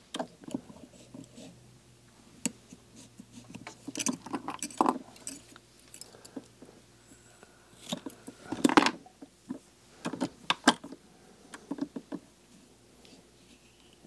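Scattered light clicks, taps and rustles of hands and small tools working wool and thread on a fly-tying vise and bench, with a louder knock and rustle about nine seconds in.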